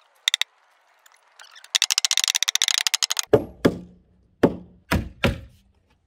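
Heavy hammer blows on the log wall of a log cabin, driving the logs down into place: five hard, ringing thuds in the second half. They come after a couple of seconds of fast, high clicking rattle.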